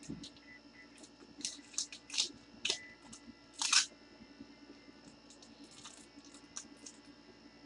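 Trading cards and foil card-pack wrappers being handled, giving a string of short crinkles and rustles, the loudest about four seconds in, with a soft thump at the start.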